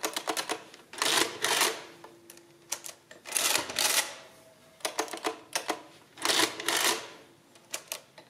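Victor Series 6 and 7 mechanical adding-listing machines being worked: short runs of key clicks as numbers are entered, and three pulls of the hand crank, each a clattering two-stroke cycle of the mechanism adding the number to the register and printing it.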